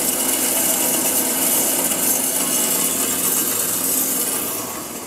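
JMT WV260 metal-cutting band saw running with its blade speed set at 200, the blade working into a solid round bar. It makes a steady, hissing, rasping saw noise that eases off a little near the end.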